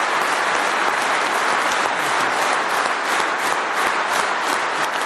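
A large audience applauding steadily. In the second half the clapping falls into a regular beat of about three claps a second.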